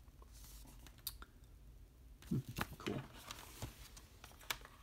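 A few faint, scattered clicks and taps from Blu-ray packaging being handled: a cardboard slipcover and plastic cases picked up and set down on a table.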